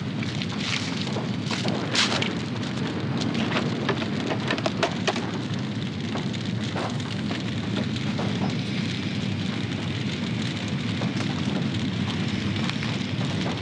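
A burning caravan: fire crackling steadily, with a cluster of sharp pops in the first few seconds that thin out afterwards.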